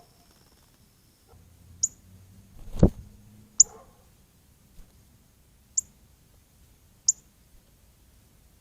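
Northern cardinal giving sharp, high chip notes, four of them spread a second or two apart, each falling quickly in pitch. A single dull thump a little under three seconds in is the loudest sound.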